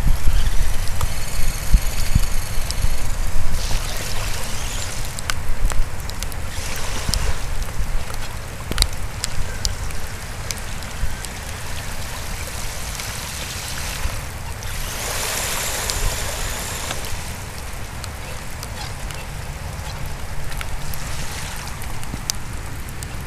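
Rain and trickling water around an RC crawler driving through a puddle, with scattered small clicks and knocks. There is heavy low rumbling in the first few seconds, and a brief louder rush of noise about fifteen seconds in.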